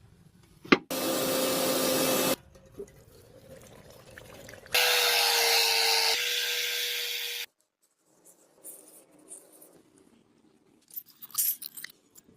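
Two loud bursts of hissing, each starting and stopping abruptly: one of about a second and a half, just after a sharp click, and a longer one of nearly three seconds around the middle. Faint clicks and rubbing follow near the end.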